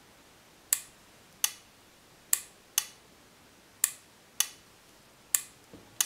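A 6-volt relay clicks seven times at irregular intervals, pulling in and dropping out as a magnet is brought to and away from the reed-switch sensor that drives it.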